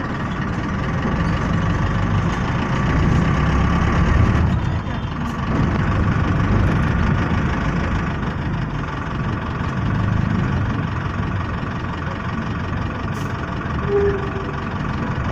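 A vehicle engine running steadily under road and traffic noise, heard from a vehicle moving along a city street. The sound swells a little around four seconds in.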